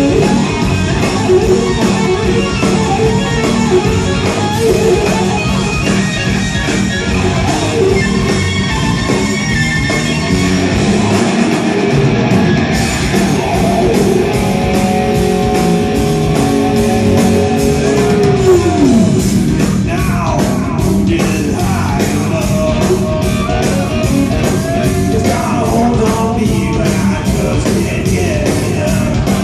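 Live rock band playing loud, with electric guitars to the fore. A long held note slides down in pitch about eighteen seconds in.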